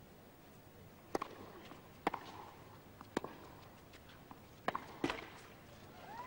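Tennis rally: a tennis ball struck by rackets and bouncing on the court, sharp pops about a second apart, five in all.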